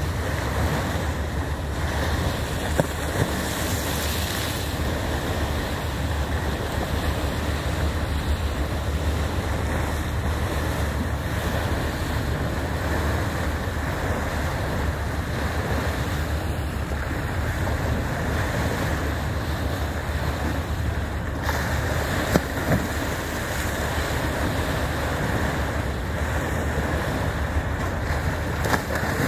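Water rushing and splashing along the hull of a moving boat, with wind buffeting the microphone. A few short knocks stand out, twice about three seconds in and twice about three-quarters of the way through.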